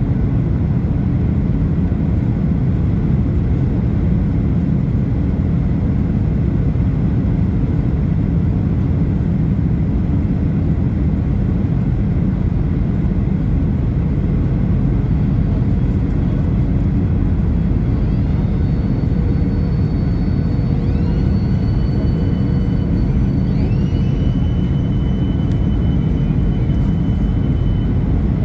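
Steady airliner cabin rumble heard from a window seat over the wing during descent. About two-thirds of the way through, a thin high whine slides up in pitch and holds, then more such tones rise and settle.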